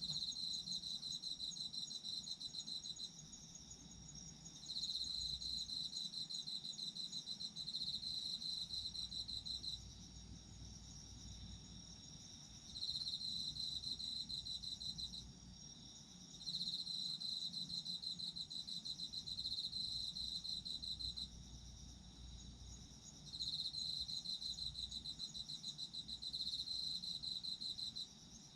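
Autumn crickets chirping. One sings rapid pulsed trills in bouts of a few seconds separated by short pauses, over a steadier, higher-pitched trill from another insect.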